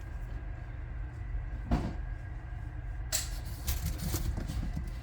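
Handling of die-cast model car packaging: a soft knock a couple of seconds in, then rustling of box and packing material from about three seconds in, over a low steady hum.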